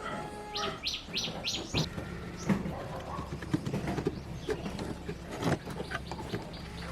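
Birds chirping, with a quick run of four high chirps about half a second in, over scattered sharp clicks and taps and a steady low hum.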